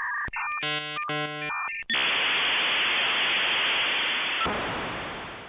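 Dial-up modem handshake: about two seconds of stepped electronic tones, then a loud, steady hiss that fades away near the end.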